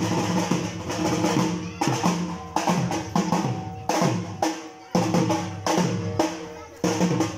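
Dhak, the large Bengali barrel drum, beaten with sticks in a fast, driving rhythm: a roll of light strokes with heavier beats about every second, whose deep tone falls in pitch after each hit. A metallic ringing, from a small bell-metal gong struck alongside, carries between the beats.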